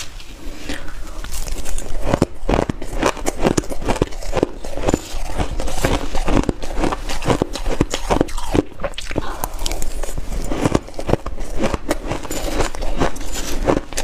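Close-up crunching of dry shaved ice being bitten and chewed, a quick irregular run of crisp crunches several times a second, along with a metal spoon digging into the ice in a plastic bowl.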